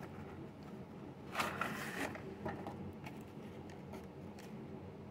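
Cardboard model-train box handled and its white insert tray slid out, with a scraping rustle about a second and a half in, then a few light clicks.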